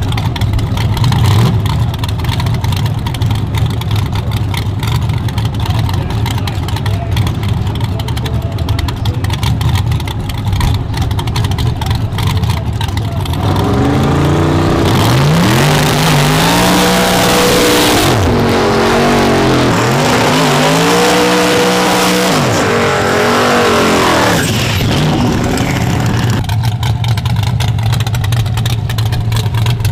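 Chevrolet S-10 drag truck's small-block V8 idling with a strong low rumble. About thirteen seconds in it is revved up and down repeatedly for around twelve seconds, with a loud hiss mixed in, then it drops back to idle.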